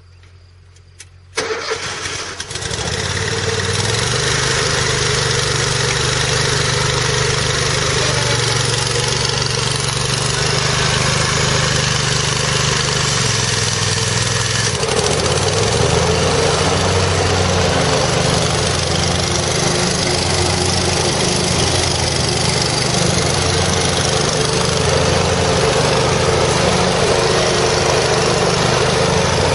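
Kohler Command 25 hp V-twin engine of an Exmark Lazer Z commercial zero-turn mower cranking briefly and catching about a second and a half in, then running steadily. About halfway through its note shifts lower and settles into an even pulse.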